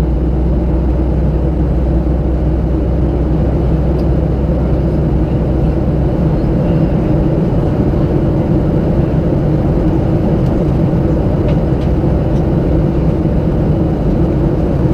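Steady cabin noise of a Boeing 737-700 in flight, heard from a window seat by the wing: the drone of its CFM56-7B turbofan engines and the rush of air past the fuselage. The deepest part of the rumble eases a few seconds in.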